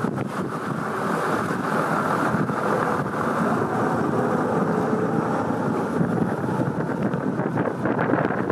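Steady wind rushing over the microphone, mixed with the wash of water, heard from a fast-moving chase boat.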